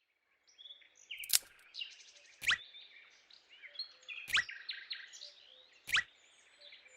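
Birds chirping and twittering, with a sharper call repeating about every second and a half.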